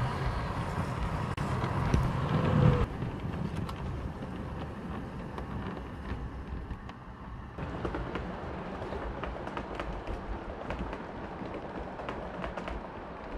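7mm-scale model train running on the layout's track: a low rumble of wheels and motor, loudest for the first three seconds as the locomotive passes close by. It then runs quieter, with many light clicks from the wheels on the track.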